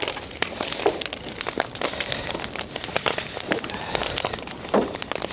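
Scrap-wood fire crackling, with dense, irregular snaps and pops and a couple of stronger knocks about a second in and near the end.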